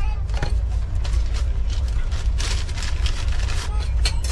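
Spoon scraping and clinking inside a steel tumbler as jhalmuri (spiced puffed rice) is stirred, a quick irregular run of clicks and scrapes. Underneath is the steady low rumble of the moving train.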